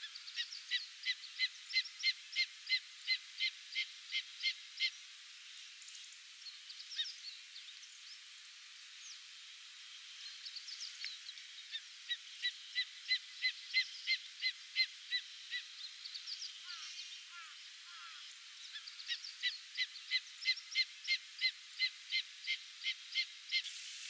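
Greater spotted eagle calling: three runs of short, evenly spaced high notes, about three a second, each run lasting four to five seconds with pauses between.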